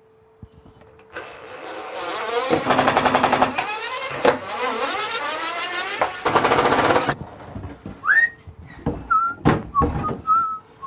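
Power drill-driver running for several seconds with its speed rising and falling as it backs a screw out of the boat's woodwork. Then come short high squeaks and a scatter of clicks.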